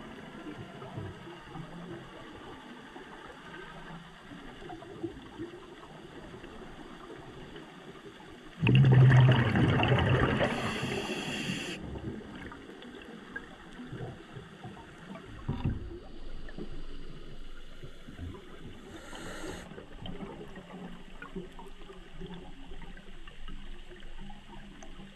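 Underwater sound with a low steady hiss. About nine seconds in comes a sudden loud rush of a scuba diver's exhaled bubbles, fading over two to three seconds, and a couple of fainter, shorter bubble rushes follow later.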